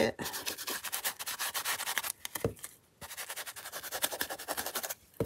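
Ink blending tool scrubbed quickly over ridged corrugated cardboard, making a rapid, scratchy rubbing. It pauses briefly twice, around two and three seconds in, and stops just before the end.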